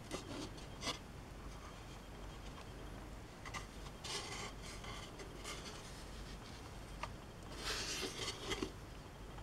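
Handling noise: a plastic tray and its board being turned over in the hands, with short rubbing and scraping sounds, the busiest cluster coming near the end.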